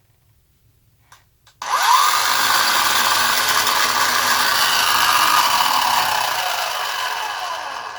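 Toy car running on a plastic stunt track: after a couple of light clicks, a loud whir starts suddenly about two seconds in, its whine slowly falling in pitch as it winds down and fades near the end.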